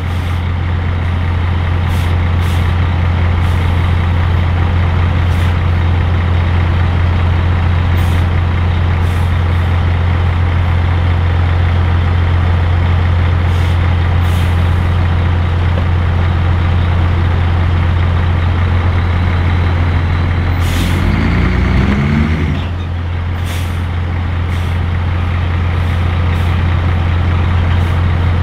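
Heavy diesel truck engine running steadily and loudly, with a brief change in engine pitch about three quarters of the way through.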